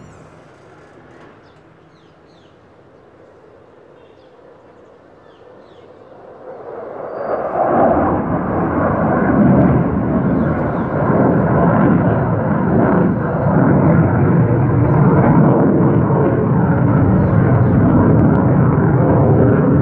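F-16 fighter jet's engine roaring overhead as it climbs: faint at first, then the roar swells sharply about seven seconds in and stays loud and rumbling.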